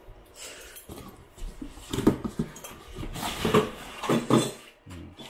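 White foam packing blocks being handled and pulled out of a cardboard box, rubbing against each other and the cardboard in irregular scrapes and squeaks, loudest in the second half.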